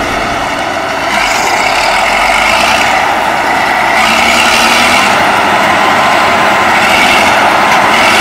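Heavy harvest machinery running steadily and loudly, growing louder about a second in.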